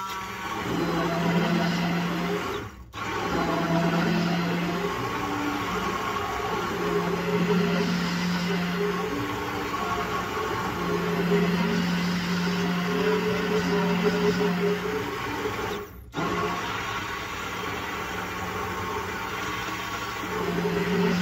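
KitchenAid mini immersion blender running down in a metal tumbler, blending blueberries, yogurt and milk into a smoothie. Its motor hum wavers as the blade works through the mix, and it cuts out briefly twice, about three seconds in and again about sixteen seconds in.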